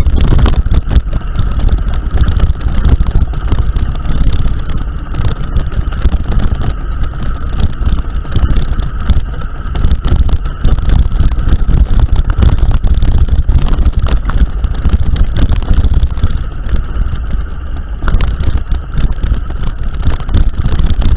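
Travelling vehicle heard on the move, with heavy wind rumble buffeting the microphone over a steady faint whine.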